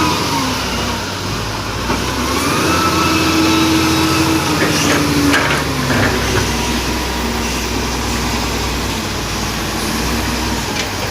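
Bulldozer's diesel engine running, its pitch dipping and rising as it revs under load, with a few knocks about five seconds in.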